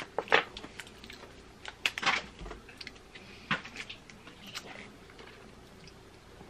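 Crisp chocolate-covered wafer bars being chewed, with scattered crunches and clicks that thin out in the second half.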